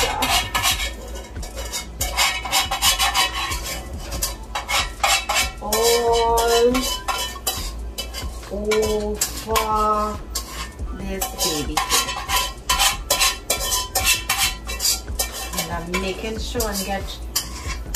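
A spoon stirring macaroni into cheese sauce, scraping and clinking against the dish in quick, irregular strokes.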